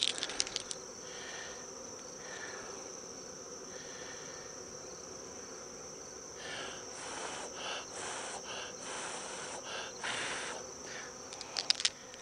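Steady high-pitched chirring of crickets with the faint hum of honeybees over an open hive, plus rustling and a few clicks from hands and clothing close to the microphone at the start and near the end.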